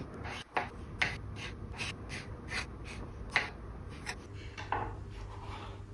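Small kitchen knife slicing cherry tomatoes on a plastic chopping board: a run of short taps of the blade on the board, about two cuts a second.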